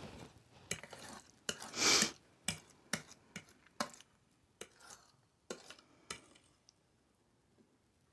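Cutlery clinking and scraping against a dish of spaghetti: a string of sharp taps for about six seconds, with a longer, louder scrape about two seconds in.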